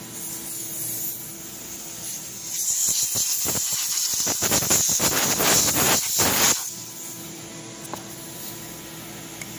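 Mist coolant spray hissing loudly at the end-mill cut for about four seconds, starting a couple of seconds in and cutting off sharply, over the steady hum of the milling machine.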